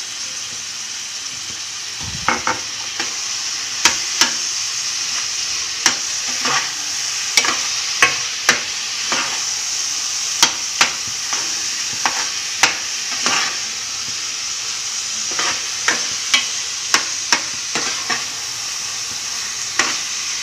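Grated carrot halwa sizzling in a metal pan as khoya is stirred into it, with a steady hiss. A metal spoon scrapes and clinks against the pan about once or twice a second from about two seconds in.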